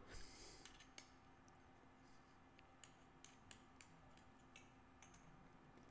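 Faint, scattered metallic clicks, about ten in all, of oiled shim buckets (valve lifters) being worked by hand into their bores in a Honda CBX 1000 aluminium cylinder head.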